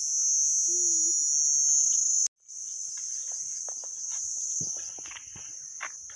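Loud, steady high-pitched drone of forest insects. It cuts off abruptly about two seconds in, then resumes slightly quieter with scattered short knocks and rustles.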